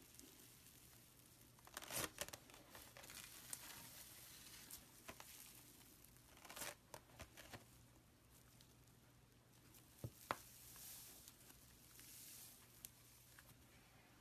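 Fluffy slime worked by hand, stretching and tearing with faint crackles and pops; the sharpest pops come about two, seven and ten seconds in.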